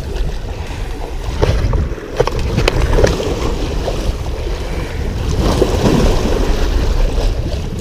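Wind rumbling on the microphone over moving water, with a few sharp clicks about one and a half to three seconds in.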